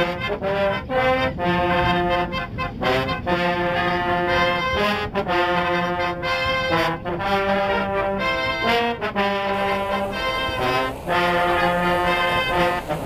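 Brass band playing a tune, trombones to the fore, in held notes and chords that move in phrases with short breaks between them.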